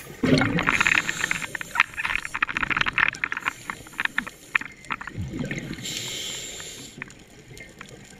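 Underwater sound of scuba breathing picked up by a diver's camera: a crackling rush of exhaust bubbles over the first few seconds, then a low burble, and a breath hissing through the regulator about six seconds in.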